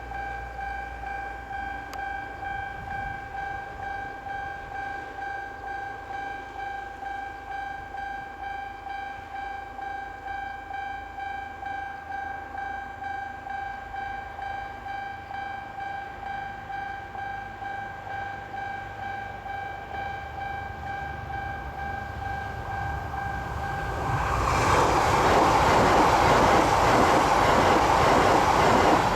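Japanese railway level-crossing warning bell ringing steadily at about two and a half rings a second. About 24 seconds in, a train rushes through the crossing; its loud passing noise swamps the bell to the end.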